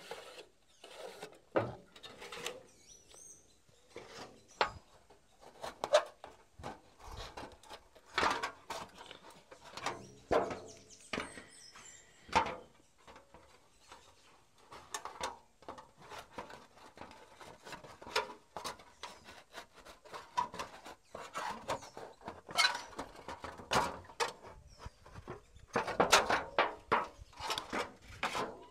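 A thin metal sheet being cut with a machete: irregular scrapes, crinkles and knocks as the blade works through the flexing sheet on a wooden board, with a louder run near the end.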